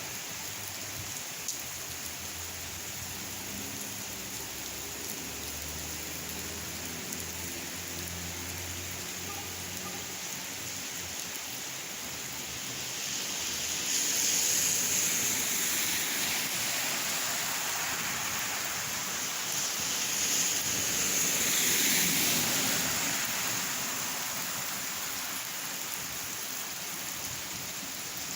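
Steady rain falling, a continuous hiss that swells louder for several seconds past the middle and then eases back.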